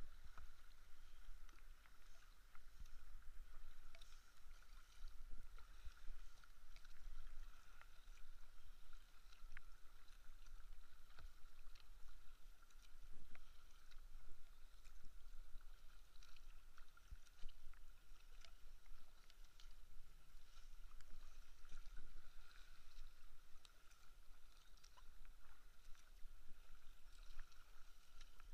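Kayak paddle strokes dipping and pulling through calm water, with drips and splashes off the paddle blades and small ticks, over a low rumble and a faint steady tone.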